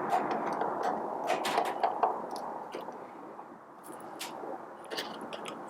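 Hand screwdriver turning Phillips screws out from under the feet of a Baratza Forte coffee grinder: a steady scraping, gritty sound with scattered small clicks and taps, easing off after about two seconds.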